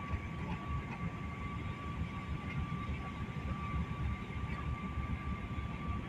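Airliner cabin noise: a steady low rumble of engines and airflow, with a thin, steady high whine running through it.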